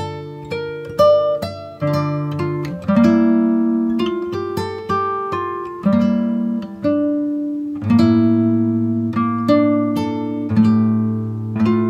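Background music: an acoustic guitar picking notes and chords, each pluck ringing out and fading.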